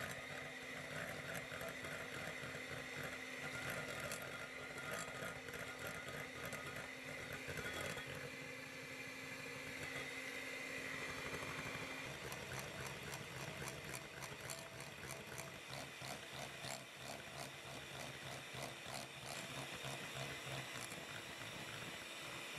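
Electric hand mixer running, its wire beaters whipping egg yolks in a glass bowl as hot sugar syrup goes in for a coffee buttercream. About halfway through, the motor's tone changes as it is set to medium-high speed.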